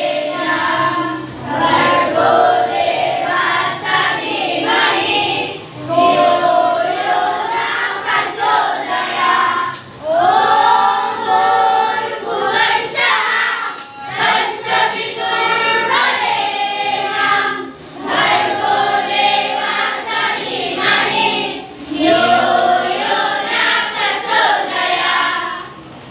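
A group of children singing together in unison, phrase after phrase, with short breaths between the lines.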